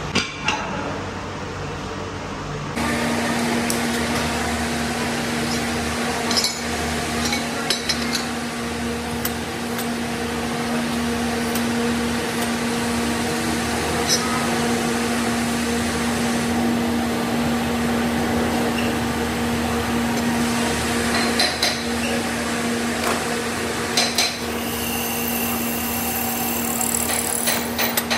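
Pillar drill press running with a steady hum while its bit drills holes through the hub of a cast-iron car brake disc, with scattered sharp metallic clicks from chips and handling. In the first few seconds, before the drilling, there are a few metal clinks.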